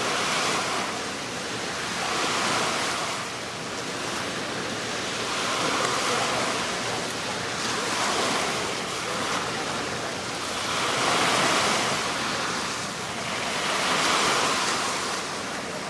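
Sea waves washing in, a steady rushing noise that swells and fades about every three seconds, with wind on the microphone.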